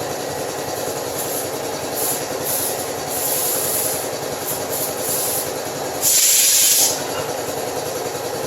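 Compressed air hissing in a steady stream over a running machine, with louder bursts of hiss about two, three and five seconds in and the strongest, lasting under a second, about six seconds in.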